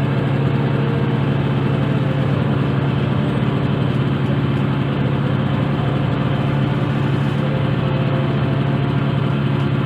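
Motorboat engine running steadily at an even pitch, with no change in speed.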